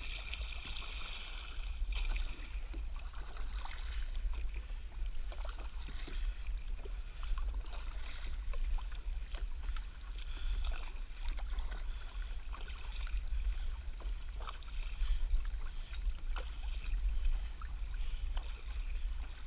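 Paddle strokes in the water as a small boat is paddled along: repeated splashes and drips, rising and falling every second or two, over a steady low rumble.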